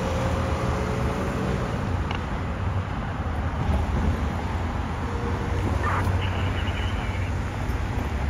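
City street traffic: idling and slow-moving car engines as a steady low rumble, with a short high-pitched tone about six seconds in.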